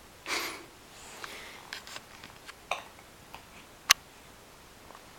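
A baby's hiccups and small mouth sounds: a short breathy catch near the start, a few soft clicks, and one sharp click-like hic about four seconds in.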